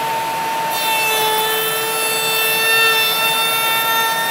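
Trim router and shop vacuum running steadily; from about a second in, the router bit cuts along the edge of a short wooden board, adding a high, dense cutting whine and hiss over the motors.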